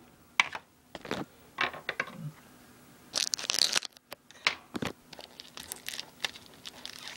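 Hands handling a plastic Blu-ray/DVD case and its cardboard slipcover: scattered clicks and knocks from the case, a loud crinkling rustle lasting under a second about three seconds in, then light ticking and scratching of fingers on the packaging.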